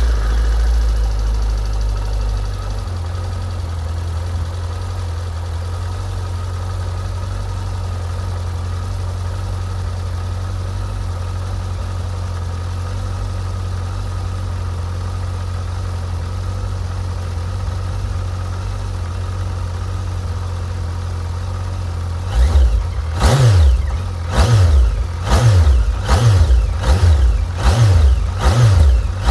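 Suzuki GSX1250FA's inline-four engine idling just after a cold start, the idle settling slightly lower after a couple of seconds. From about 22 seconds in, the throttle is blipped repeatedly, about once a second, the revs rising and falling each time.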